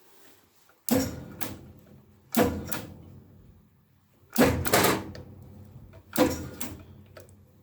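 An Accura metal lathe's control lever and switch gear worked repeatedly: about four sharp clunks, each followed by a short fading hum. The motor does not run up, a fault the owner suspects is a bad start capacitor.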